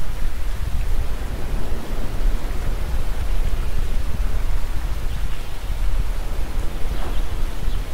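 A steady rushing noise, heaviest in a deep low rumble, with no clear rhythm or pitch.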